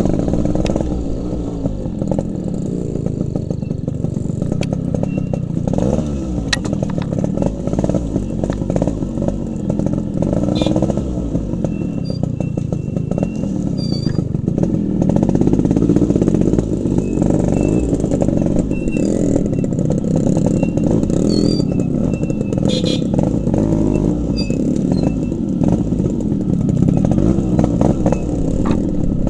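Two-stroke motorcycle engine running at low speed on a rough dirt trail, its revs rising and falling, with a few short knocks.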